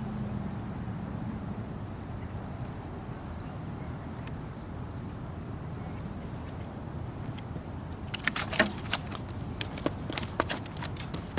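Steady low background noise, then from about eight seconds in a quick, irregular run of sharp clicks and knocks.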